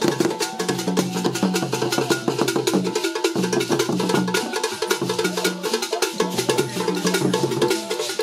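Live Ghanaian traditional hand-drumming: fast, dense drum strokes in a steady repeating pattern, with a pitched line running underneath.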